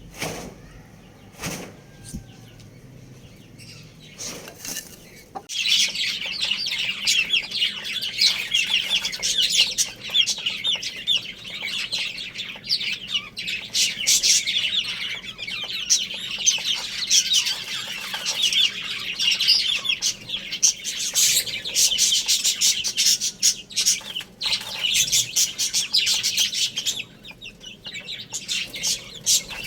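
Many small birds chirping and chattering at once in a dense, fast, high-pitched stream, starting about five seconds in after a few short knocks, with a brief lull near the end.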